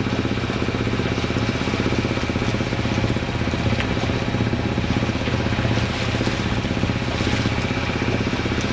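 A sailboat's inboard engine running steadily under way, a low even drone with a fast regular pulse, as the boat motors through choppy water.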